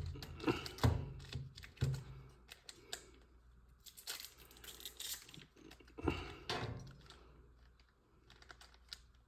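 Trading cards and foil pack wrappers being handled: irregular clicks and taps of cards being shuffled and flipped, with short bursts of wrapper rustle about four and six seconds in.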